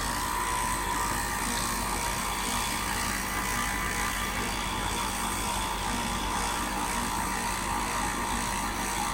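Heat pump outdoor unit running in its defrost cycle: a steady compressor hum with an even hiss over it.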